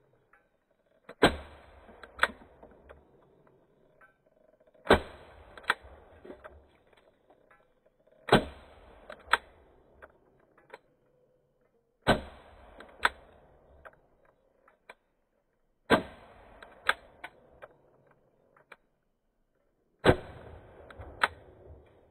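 A 4.5 mm pistol firing six shots, one every three to four seconds, each sharp bang followed by a smaller click about a second later.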